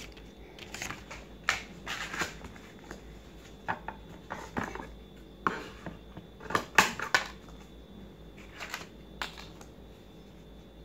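Green craft paper being handled and cut with scissors: irregular crisp rustles and snips, thinning out near the end.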